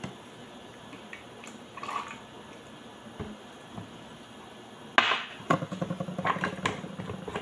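Cooking oil poured from a drinking glass into a glass blender jug. About five seconds in comes a sharp knock as the glass is set down on the counter, followed by about two seconds of clicking and rattling.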